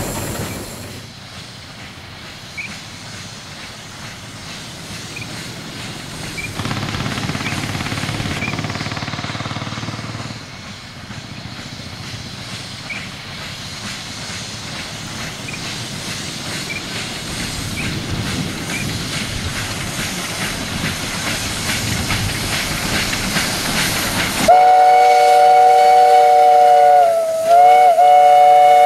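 South African Railways class NG15 2-8-2 steam locomotive running along the track, a steady rumble with light rail clatter. Near the end its steam whistle opens suddenly into a loud blast of several notes at once, wavering briefly about three seconds in and holding on.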